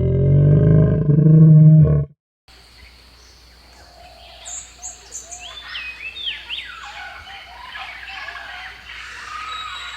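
Loud dinosaur roar sound effect for about two seconds, cutting off suddenly, followed after a brief gap by a background of many birds chirping and calling.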